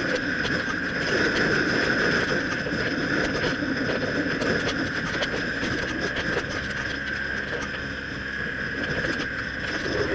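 BMW R1200CL motorcycle under way, its flat-twin boxer engine running steadily with road and wind noise.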